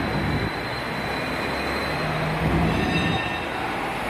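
Street traffic noise, with a vehicle's high-pitched squeal about three seconds in.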